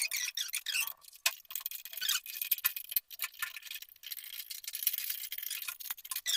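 Light metallic clinks and ticks, irregular and close together: nuts and washers being fitted and tightened with a wrench on a water heater's metal wall clamp.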